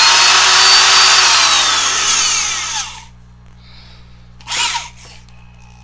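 Old Milwaukee drill's brushed motor running free at full speed, its whine rising slightly and then falling as it winds down and stops about three seconds in, followed by a short burst near the end. The drill is running again after a wire that had come out of its trigger switch was put back.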